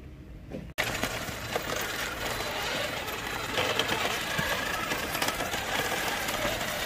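Radio-controlled trail truck's small electric motor and gears whirring, with rattling and clicking from the chassis, starting abruptly about a second in.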